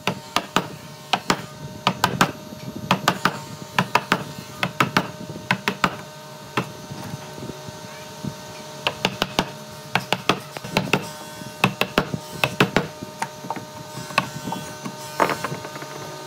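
Mallet striking a chisel to chop a mortise in a clamped pine board: sharp wooden knocks in quick runs of several blows, with short pauses between runs.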